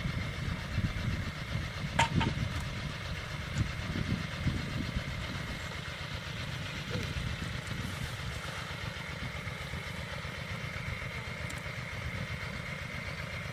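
A small engine running steadily, with a fast low putter and a steady high tone above it; a sharp click about two seconds in.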